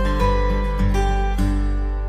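Background music: plucked string notes picking out a melody over a steady bass line, a few notes a second, each note sounding sharply and dying away.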